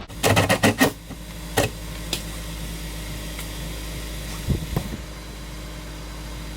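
A quick run of sharp clicks and knocks in the first second, then a few scattered knocks, over a steady low mechanical hum.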